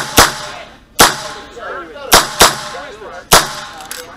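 Chiappa Rhino .38 Special revolver firing six shots: a quick pair, a single, another quick pair and a last single, spread over about three and a half seconds. This empties the cylinder.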